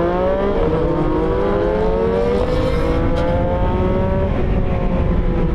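CFMOTO 675SR-R's 675 cc inline three-cylinder engine pulling hard under acceleration, its pitch climbing through the revs. It upshifts about half a second in and again about four seconds in, dropping in pitch at each shift and climbing again.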